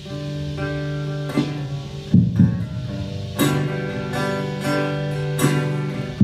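Acoustic guitar strummed in slow chords, each struck about every second or two and left to ring, with no singing.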